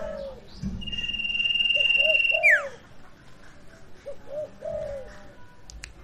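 Scops owl (sirtu) calls: short, low, arching hoots in quick groups of three, once in the middle and again near the end. Overlapping the first group is a long, steady, high whistle that slides sharply down about two and a half seconds in, the loudest sound.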